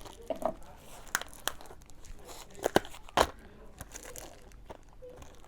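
Crinkling and crackling of plastic food packets being handled, with a few sharp clicks; the loudest come a little before and about three seconds in.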